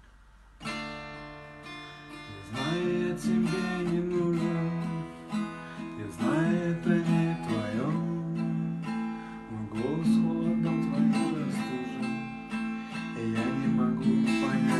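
Nylon-string classical guitar strummed, starting about half a second in.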